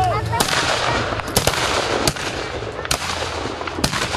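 Black-powder muskets firing a ragged run of single shots, about five sharp cracks at uneven gaps, a little under a second apart.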